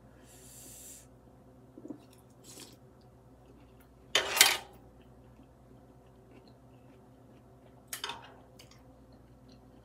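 A person slurping pho rice noodles from chopsticks: one loud slurp about four seconds in and a shorter one near the end, with a few light clinks of utensils against the pot.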